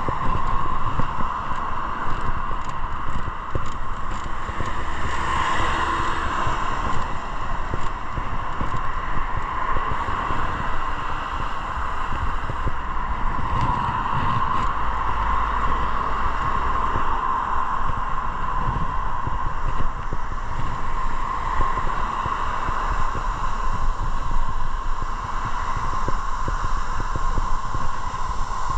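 Motorcycle riding along: steady wind rush on the microphone over road and engine noise, with a constant mid-pitched hum and no sharp events.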